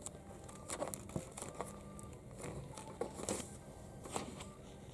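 Hands pressing and shaping soft modelling clay on a tabletop, heard as faint, scattered small clicks and crinkles.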